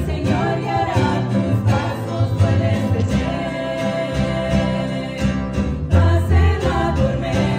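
Several women singing a hymn together, backed by strummed acoustic guitar and a plucked upright double bass.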